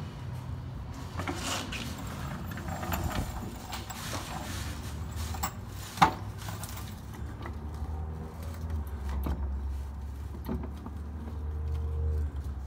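Daytona hydraulic floor jack being rolled across a concrete floor under a car, with metal rattles and clicks and one sharp clack about six seconds in. It is then raised until its saddle meets the car's jacking plate, over a steadier low rumble.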